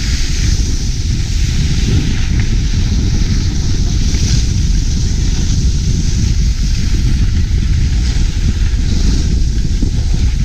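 Wind buffeting a moving camera's microphone during a fast ski descent, a steady rumble over the hiss and scrape of skis on packed snow.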